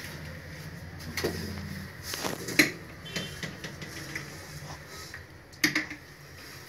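A few sharp knocks and clicks, the loudest about two and a half seconds in and another near the end, over a low hum that fades after about two seconds.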